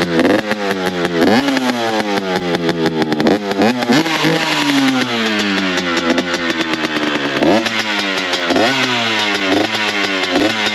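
Two-stroke dirt bike engine, just kick-started cold with the choke held open, running and being blipped. The revs shoot up sharply and slide back down again and again.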